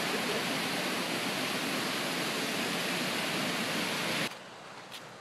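Water rushing down a grist mill's spillway beside its waterwheel: a steady, full rush that stops abruptly about four seconds in.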